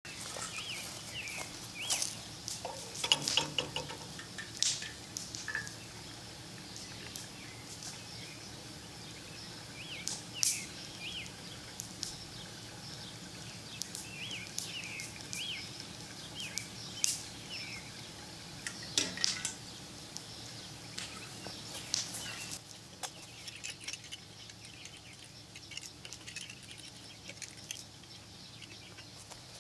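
Small birds chirping over and over, with a few sharp clicks and knocks scattered through.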